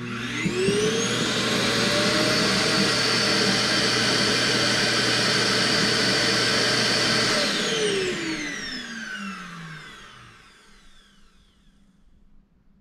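An iRobot vacuum motor starts abruptly and whines up to speed, runs loud and steady for about seven seconds, then winds down with a falling whine over the next few seconds.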